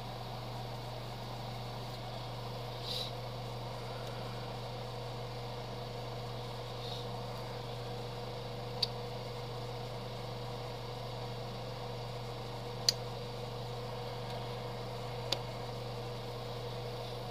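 Steady hum and airy rush of an electric motor running, with three short, sharp clicks in the second half.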